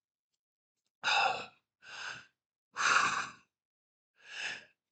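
A man breathing deeply and audibly: after about a second of quiet, four long breaths, alternating louder and softer, like slow sighs in and out.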